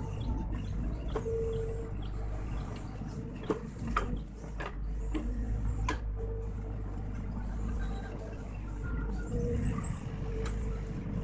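Sany SY55C mini excavator's diesel engine running steadily under hydraulic load as the machine digs and swings in mud. Several sharp knocks fall in the middle.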